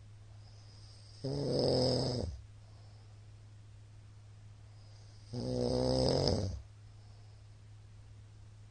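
A sleeping man snoring: two loud snores, each about a second long and about four seconds apart.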